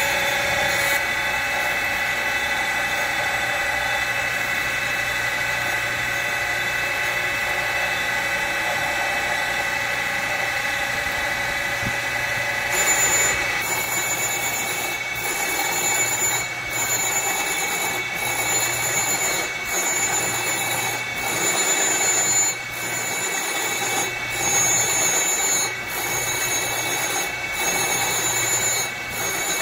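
Surface grinder running, its wheel grinding aluminum parallels held on a magnetic chuck. About thirteen seconds in the sound changes, and after that it rises and dips in a regular pattern about every second and a half.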